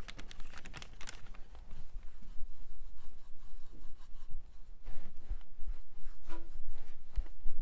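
A small paintbrush brushing white paint onto a laser-cut wooden cutout: a run of short, scratchy strokes with a few soft knocks.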